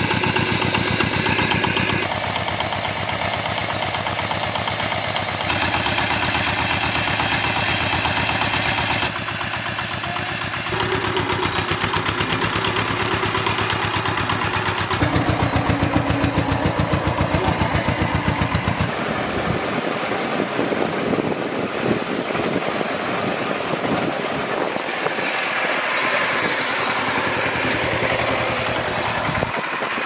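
Two-wheel walking tractor's single-cylinder engine running with a steady, even beat of firing strokes as it pulls a loaded trailer; the sound jumps in character several times.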